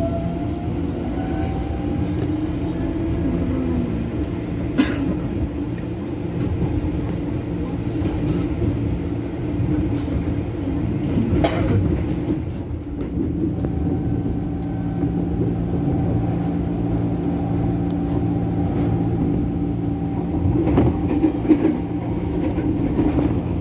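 KRL Commuter Line electric train running, heard from inside the car: a continuous rumble with motor whine. A whine rises in pitch in the first couple of seconds, there are sharp clicks about 5 and 11.5 seconds in, and a steady whine holds from about 13 seconds on.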